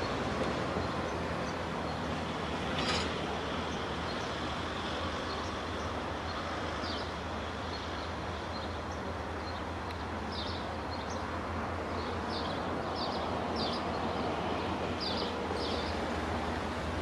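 Freight diesel locomotive running with a steady low rumble. Short high chirps come over it now and then in the second half.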